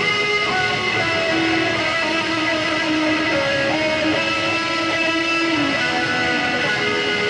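Electric guitar playing a slow melody of long, held lead notes, with smooth slides between some of them.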